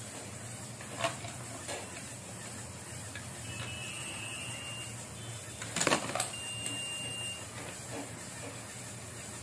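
LEGO Mindstorms Robot Inventor 51515 trash sorter running: its motors give a faint steady whir with two short high whines as the chute arm tilts, and the plastic parts click and knock a few times, loudest about six seconds in.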